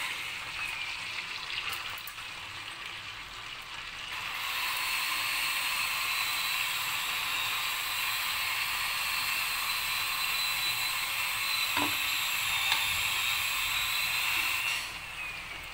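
Whole prawns frying in hot oil in a kadai: a steady sizzle with fine crackle. It grows louder about four seconds in and drops back near the end.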